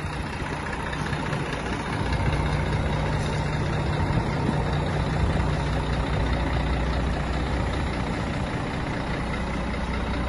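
Scania P340 tipper truck's diesel engine running steadily, a little louder from about two seconds in.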